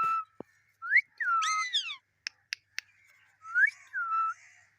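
Pet parrot whistling: a rising-then-falling whistle, given twice in the first two seconds and again near the end. Three short sharp clicks come in between.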